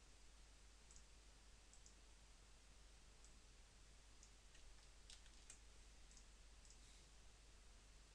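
Faint, scattered clicks of a computer mouse and keyboard, some in quick pairs, over near silence.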